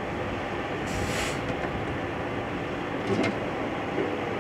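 Steady low mechanical rumble of a heavy vehicle engine running, with a short hiss about a second in and a couple of sharp knocks a little after three seconds.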